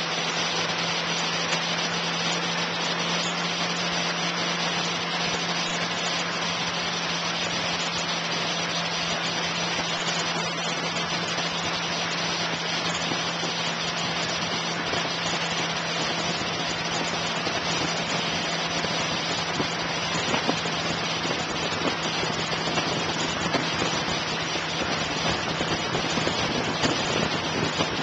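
Tow boat's engine running steadily under way, a constant low hum under the rush and splash of water churning in the wake.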